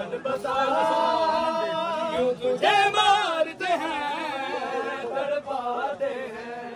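A group of voices chanting a nauha, a Shia mourning lament, unaccompanied, with several voices overlapping and bending in pitch.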